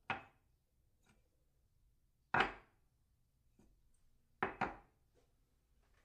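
A cup set down on a saucer: a handful of short clinks, one at the start, the loudest a little over two seconds in, and a quick double clink about four and a half seconds in, with fainter light taps between.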